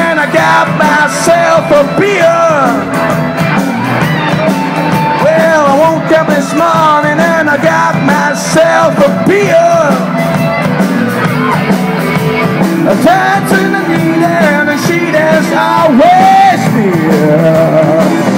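Live rock band playing loudly: a male singer over electric guitar, bass and drums.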